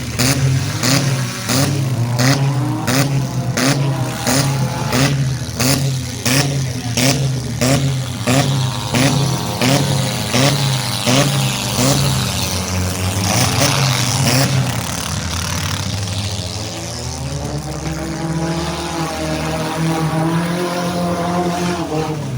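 Demolition derby cars' engines running hard and revving, with a pulsing beat of about two a second and sharp clattering strokes for much of the time, then a steadier engine note that rises and falls near the end.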